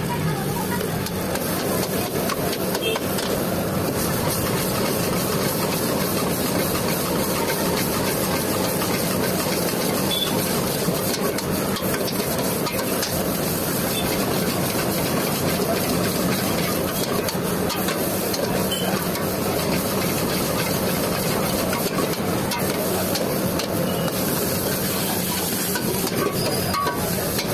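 Noodles stir-frying in a large wok over a high gas flame: a steady hiss of burner and sizzle, with the ladle stirring and tossing the noodles in the pan.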